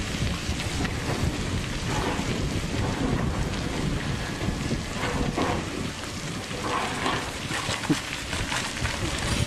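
Komatsu crawler excavator's diesel engine running under load as its bucket digs into loose rock, with a steady rumble and wind noise on the microphone. Rocks knock and clatter a few times, about halfway through and again near the end.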